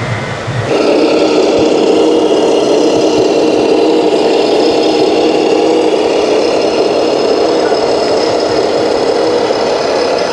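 Radio-controlled scale model truck running, starting abruptly under a second in: a steady mechanical drone with a thin high-pitched whine above it.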